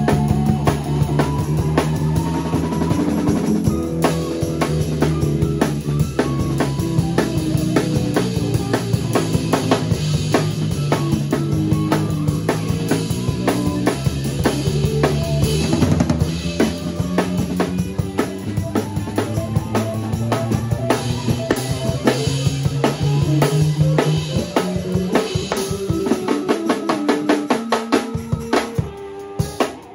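Live improvised funk band playing: a drum kit groove of kick, snare and rimshots over a bass guitar line, with other instruments filling in. About 26 seconds in, the bass drops out and only scattered drum hits are left.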